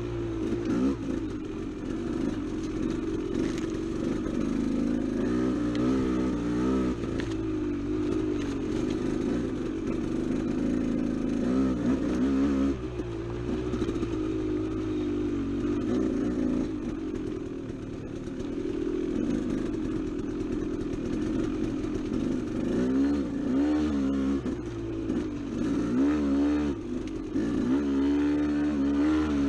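Trail motorcycle engine running with the revs rising and falling again and again as the bike is ridden over a dirt trail, with rattling from the bike.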